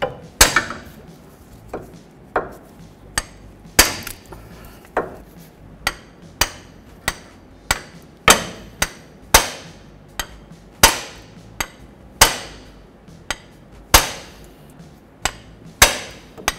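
Hammer blows on the steel driver of a freeze-plug installer tool, tapping a new freeze plug into a Dodge Ram engine block. It is a steady series of sharp metal-on-metal strikes, about one and a half a second, each with a short ring.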